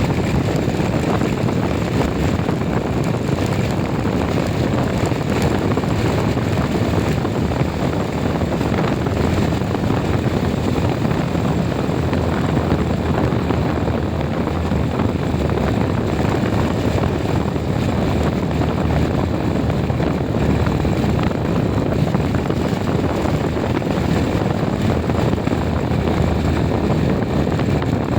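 Steady running and road noise of a moving vehicle, unchanging throughout.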